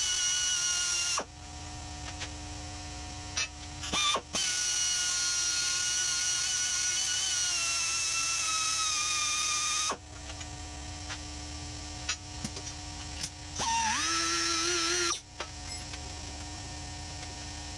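Die grinder with a carbide burr bit, a high whine run in three bursts with a few short blips: cleaning out pin holes in the cylinder mount that were deformed by welding. Its pitch sags a little under load near the end of the long middle run, and a steady low hum fills the pauses.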